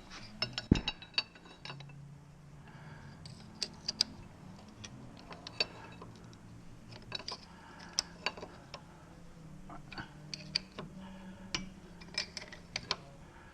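Metal tools and parts clinking and knocking as they are handled, in scattered sharp clicks with a heavier knock about a second in, over a faint steady hum.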